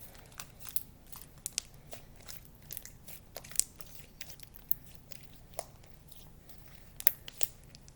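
Sticky homemade glue slime being worked by hand after a little contact solution is added, making small scattered clicks and crackles.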